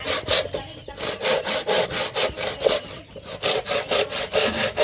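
Hand saw cutting through wood with quick, even back-and-forth strokes, about four to five a second.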